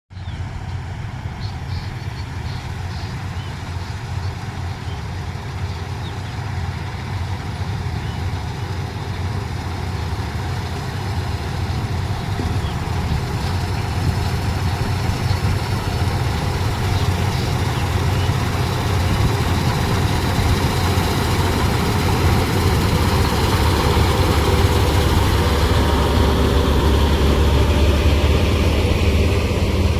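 Preet 987 combine harvester's diesel engine running steadily while cutting paddy, with a heavy low drone that grows gradually louder.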